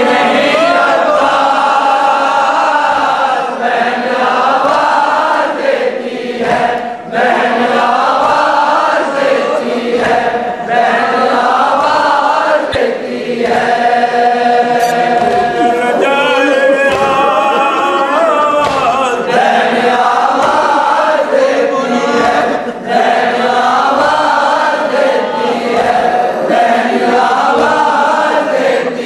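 A nauha, a Shia Muharram lament in Urdu, chanted by male voices with a group joining in, without instruments. It is a long, steady, mournful recitation with only brief pauses between lines.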